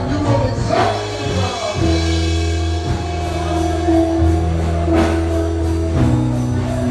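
Live gospel band music: held bass notes and sustained keyboard chords that change every second or two, over a steady drum beat.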